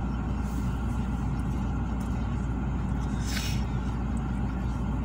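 Steady low rumble inside a car cabin while the car stands in traffic, with a short hiss of tyres on the wet road as an oncoming vehicle passes about three and a half seconds in.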